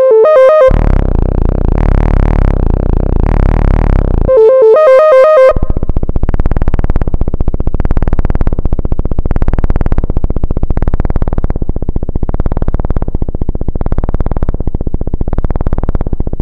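Synthesizer-like tones coming out of a Zoom B2 bass effects pedal, changing character as patches are dialled through. A sustained buzzy drone with a bright ringing tone near the start and again about four seconds in gives way, about five and a half seconds in, to a fast pulsing stutter that swells about once a second.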